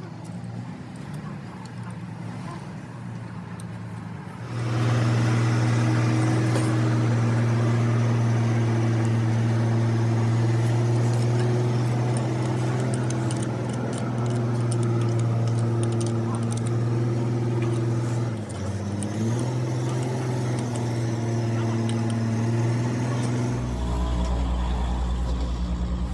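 An engine running, at first low, then much louder about four seconds in, holding a steady pitch. The pitch sags briefly about three-quarters of the way through and recovers, and a deeper drone joins near the end.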